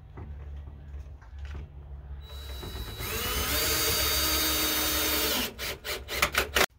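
Cordless power drill/driver driving a 1.5-inch deck screw into a cedar fence board. About two seconds in the motor spins up with a rising whine, runs steadily, then gives a few short bursts as the screw seats, and stops suddenly near the end.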